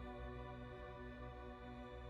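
Background music: soft, sustained ambient chords.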